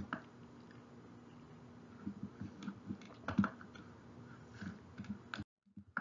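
Quiet room tone from a recording microphone, with a faint low steady hum and a few soft clicks and small mouth noises. Near the end the sound cuts out completely for a moment.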